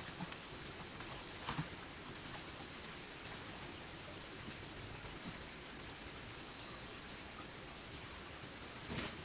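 Tropical forest ambience: a steady high-pitched drone with short chirps repeating every second or two, and a few brief rustles of footsteps in the undergrowth about one and a half seconds in and near the end.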